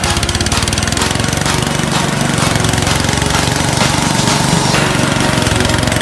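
Small engine of a portable rice thresher running steadily with a fast, even beat, the threshing drum working through rice stalks fed into it.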